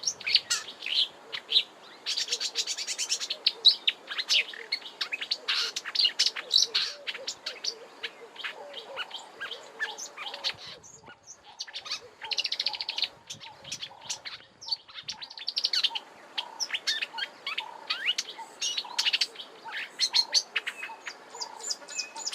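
Marsh warbler singing a fast, rambling warble of rapid high notes, with plenty of repetitive notes and mimicry. There is a short pause about halfway through.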